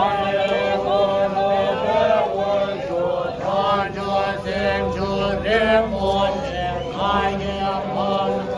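A group of marchers, Tibetan monks among them, chanting a Tibetan prayer together in a steady, repetitive recitation.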